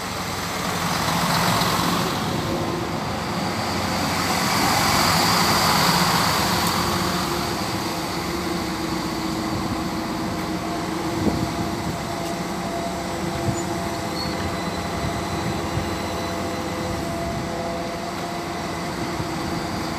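Two coupled SNCF X 73500 (ATER) diesel railcars rolling in along the platform and slowing to a stop, a rush of wheel and running noise that swells and fades over the first several seconds. Then their diesel engines idle at a standstill with a steady hum.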